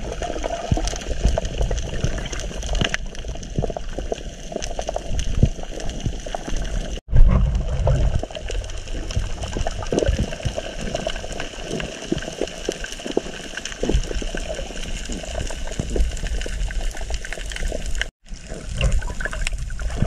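Water noise heard through an underwater camera: a muffled rushing and bubbling with scattered crackles and low thumps. The sound cuts out briefly twice, and a loud low thump follows the first break.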